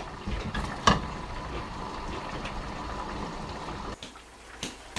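Steady low room rumble with one sharp clink of tableware about a second in. After it drops near the end, a few light clicks of metal chopsticks against dishes.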